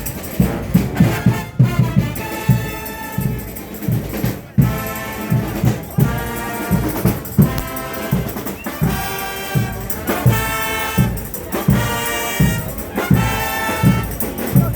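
Frevo music: trumpets and trombones play bright phrases over a fast, steady drum beat. The music dips briefly about four and a half seconds in, then carries on.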